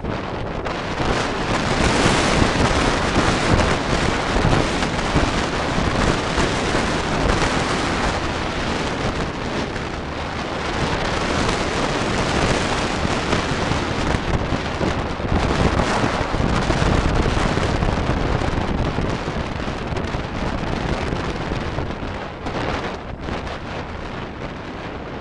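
Wind buffeting the camera microphone on a moving motorcycle, a loud continuous rush and rumble that eases a little near the end.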